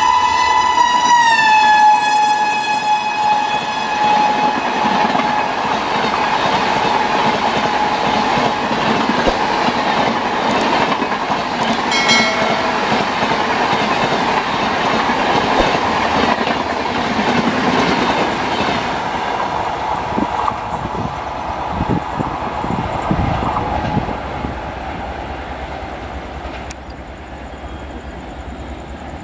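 WAP-5 electric locomotive's horn blowing one long note that drops in pitch as the locomotive goes by, then dies away within a few seconds. It is followed by the long rush and clatter of the train's coaches running past on the rails, which fades near the end.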